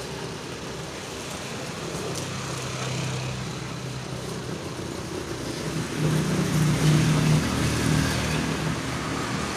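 Motorcycle engine running close by, growing louder about six seconds in and then easing off, over steady roadside traffic noise.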